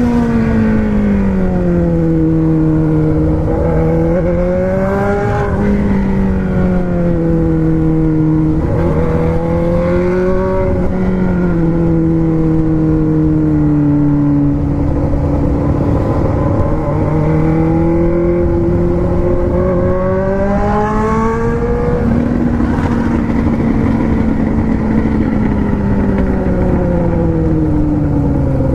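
Four-cylinder engine running under way, its pitch climbing and falling again and again as the revs change, with the sharpest rise about three quarters of the way through.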